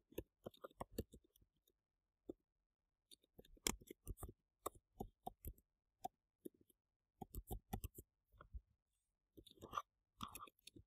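Keystrokes on a computer keyboard: faint, irregular taps that come in quick clusters of several strokes, as someone types.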